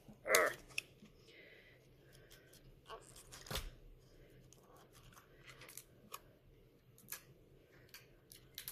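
Plastic packaging of a toy blind-pack being picked at and peeled by hand: scattered crinkles, clicks and small taps, with a louder rustle just after the start and a sharp knock about three and a half seconds in.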